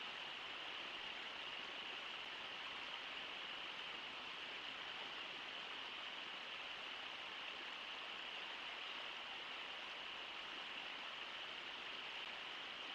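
Steady rush of water pouring over Brooks Falls: an even hiss with no breaks or separate events.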